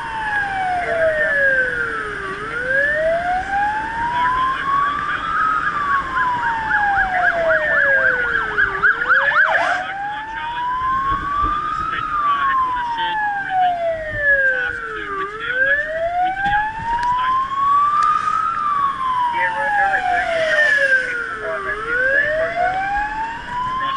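Fire truck siren on a slow wail, rising and falling about every six and a half seconds, with a brief stretch of fast warbling near the middle. It is heard from inside the moving truck's cab over engine and road noise.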